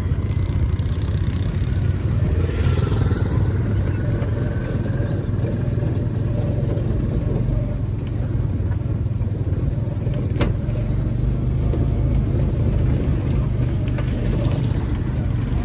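Steady low rumble of riding a motorcycle on a rough dirt road: engine running and wind buffeting the microphone, with a single brief click about ten seconds in.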